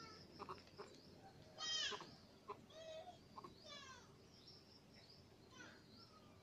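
Faint, short high-pitched animal calls, two of them about two seconds apart with a shorter, lower note between, over a few light clicks.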